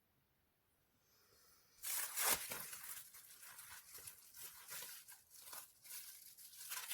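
Rough, crinkly tearing-like handling noise that starts about two seconds in after near silence, with irregular crackles, loudest just after it begins.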